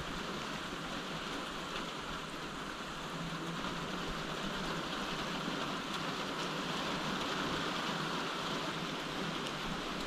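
Steady rain falling during a thunderstorm, an even hiss that holds level throughout.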